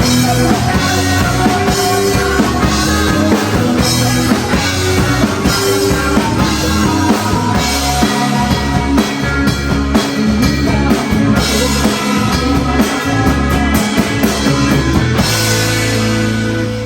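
Rock band playing live, an instrumental passage with no singing: drum kit with bass drum driving a steady beat under sustained bass and guitar.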